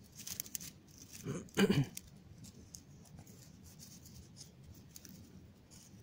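A small knife cutting wild cress stems low in the grass among dry twigs: faint scratching and rustling with small clicks. A brief vocal sound comes about a second and a half in.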